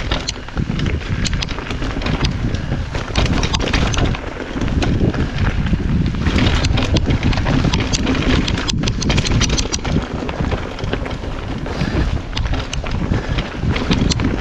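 Wind buffeting the action camera's microphone during a fast mountain-bike descent, over tyres running on a dry, dusty dirt trail, with frequent clicks and rattles from the bike.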